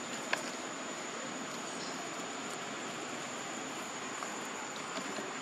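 Steady outdoor background hiss with a thin, high, steady whine over it, and a short faint click about a third of a second in.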